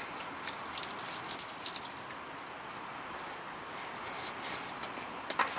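Small clicks and scrapes of chopsticks and an aluminium mess tin being handled while eating, in clusters about a second in and around four seconds in, with a sharper click near the end, over a steady hiss.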